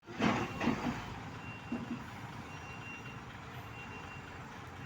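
Heavy-equipment warning alarm beeping, one high steady beep about every second, over the low rumble of a diesel engine running. A few louder clatters come in the first second.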